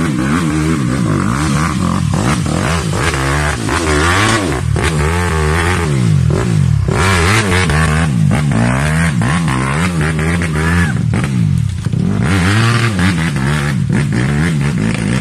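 Dirt bike engine revving hard and unevenly, its pitch swinging up and down over and over, as the rear wheel spins in deep mud on a climb.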